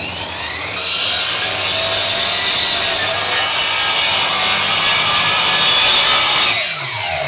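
Electric circular saw cross-cutting a yellow pine plank: the blade's whine rises in the first second, then loud sawing through the wood for about five and a half seconds, and the motor winds down with a falling whine near the end.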